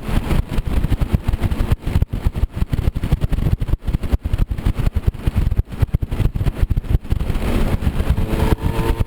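Moped scooter engine running during an off-road trail ride, drowned under rough, choppy buffeting on the microphone. A faint engine note rises in pitch near the end.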